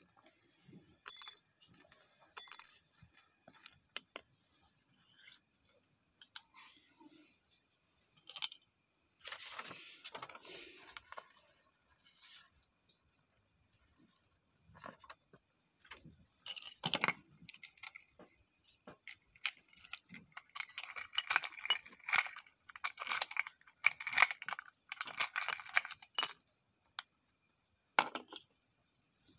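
Small metal objects being handled, clinking and rattling: two sharp ringing clinks near the start, a rustle around ten seconds in, and a busy run of clinks and rattles in the last third.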